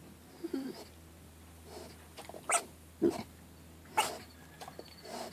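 Newborn mini piglet sneezing: three short, sudden sneezes or snorts between about two and a half and four seconds in, after a soft grunt about half a second in.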